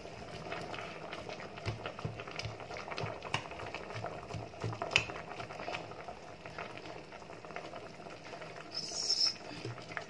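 Broth boiling in a stainless steel pot: steady bubbling with small pops and crackles throughout, a sharp click about five seconds in, and a short hiss about nine seconds in.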